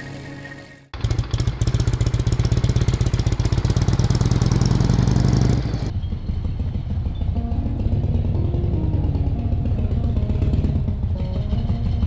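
Harley-Davidson Shovelhead V-twin engine running loud under way, its exhaust pulsing rapidly, cutting in suddenly about a second in as music ends. About six seconds in the engine sound turns duller and softer, with faint music beneath it.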